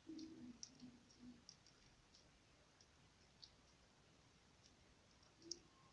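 Faint, irregular sticky clicks and pops of homemade PVA-glue-and-borax slime being stretched and squeezed between fingers, the sharpest pop near the end.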